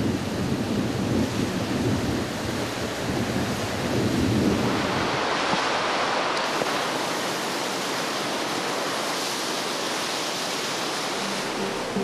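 Rushing floodwater: a steady torrent, deep and rumbling for about the first four seconds, then turning to a higher, even hiss.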